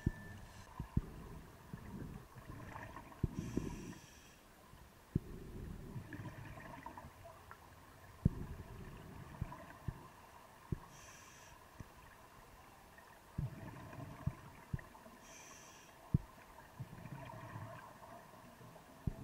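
Scuba regulator heard underwater through the camera housing: a short hiss of each inhalation about every four to five seconds, between stretches of low burbling from exhaled bubbles, with scattered sharp knocks.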